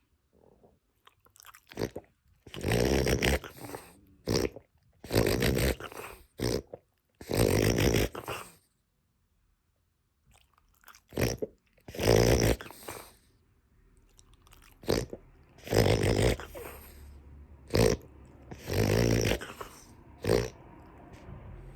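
A dog reverse sneezing: a fit of rapid, noisy inward pulls of air through the nose, coming in about a dozen bursts of half a second to a second each, with a pause of a couple of seconds about halfway through.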